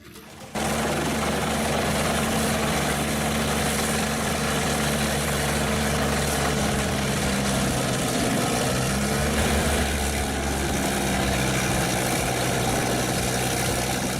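Heavy machine's engine running steadily under load, with a broad mechanical roar over it, starting abruptly about half a second in.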